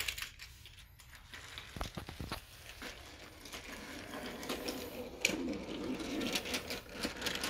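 BRIO wooden toy train with its wagons pushed by hand along wooden track: wheels rolling, with scattered clicks and knocks. It gets louder and steadier about three seconds in.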